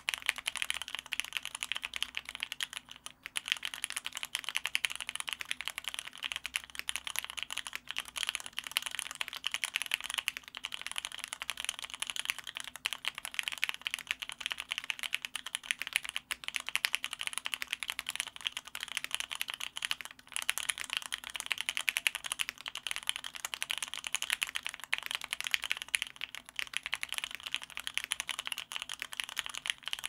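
Steady, fast typing on a Matrix 2.2 mechanical keyboard with an aluminium plate, lubed retooled black linear switches (Krytox 205g0) and GMK Metropolis keycaps, on a desk pad. The keystrokes pause briefly about three seconds in and again about twenty seconds in.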